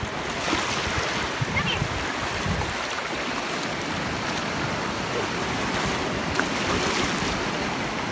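Small ocean waves breaking and washing over shallow water at the shore, a steady rushing surf.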